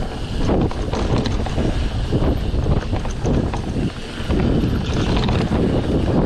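Wind buffeting the microphone of a camera riding along on a mountain bike, over a rough, uneven rumble of tyres on the trail.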